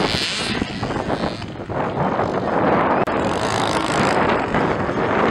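Small two-stroke engine of a 50–65 cc youth motocross bike running hard as it races around the dirt track, a loud continuous engine noise.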